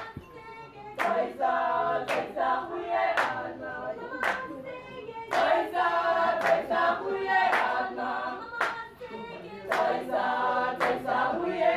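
Background music: a choir singing over hand claps about once a second.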